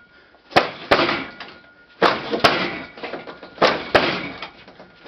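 Blows landing on a wooden Combat Dummy training dummy: hands and an elbow striking its arm and padded boards. There are three quick pairs of knocks, the two in each pair a fraction of a second apart and a pair about every one and a half seconds, each with a short rattle after.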